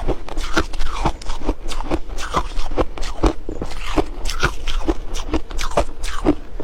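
Person chewing ice: a steady run of sharp crunches, about two to three a second.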